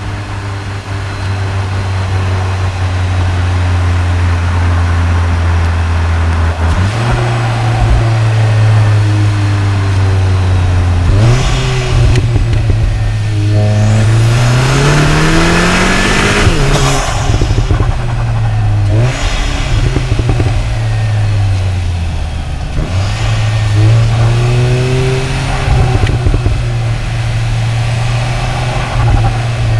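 Turbocharged 2.0-litre EA888 four-cylinder of a Cupra Ateca, heard through microphones at the intake and exhaust. It runs steadily at first, then pulls several times with rising pitch, loudest in a hard climb with a strong intake rush about midway that drops off abruptly, and eases back between pulls.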